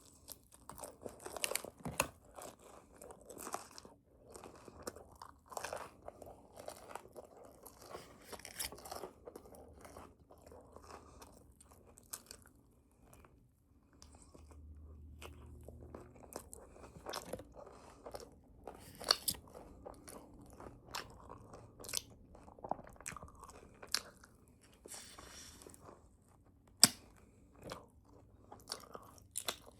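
A person chewing and crunching a crunchy bagel with cream cheese, in irregular crunches and chews, with one sharper crunch near the end.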